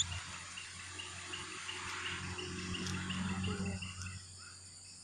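Insect chorus: an even hiss with a short high chirp repeated about four times a second, which stops about four seconds in, over a low steady hum.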